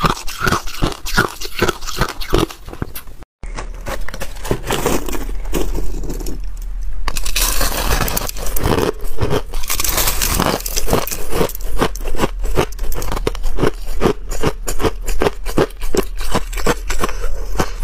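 Ice being bitten and chewed close to a clip-on microphone: crisp, repeated crunching. About three seconds in the sound drops out for a moment. A grainy, crumbly crunch follows as a chunk of pink ice is bitten, then a steady rhythmic run of chewing crunches.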